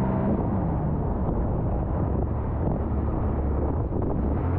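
Turbocharged Sea-Doo Spark jet ski engine running on the water, with wind noise on the microphone. Its tone drops about half a second in and turns into a rougher, steady rumble.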